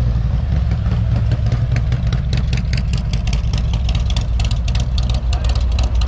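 Harley-Davidson Milwaukee-Eight 114 V-twin, built with a 468 cam, S&S headers and SVT Jackhammer mufflers, running at low speed as the touring bike rolls in. It has a deep, uneven exhaust beat.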